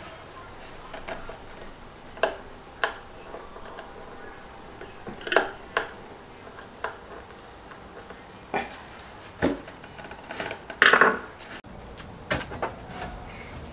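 Irregular clicks, clinks and knocks of small hard objects being handled, with a longer, louder clatter near the end.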